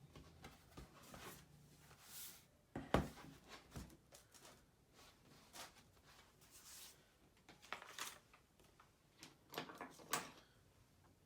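Faint, scattered clicks and knocks of repair tools and the laptop being handled on a workbench, with a sharper knock about three seconds in and a few more near the end.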